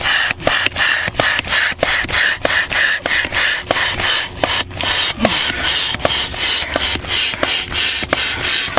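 Rhythmic rubbing or scraping strokes, about two and a half a second, steady throughout, like something being rasped or rubbed back and forth by hand.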